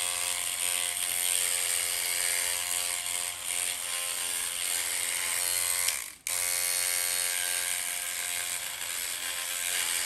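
Handheld electric dreadlock machine buzzing steadily as its hook needle locks a customer's hair at the roots. It cuts out for an instant about six seconds in, then runs on.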